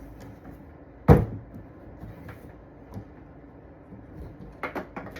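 A single sharp thump about a second in, followed near the end by a few lighter knocks and clicks, as of objects being handled.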